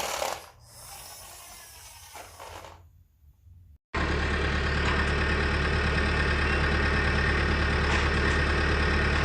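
Steady truck engine idling, starting abruptly about four seconds in after a few seconds of faint hiss.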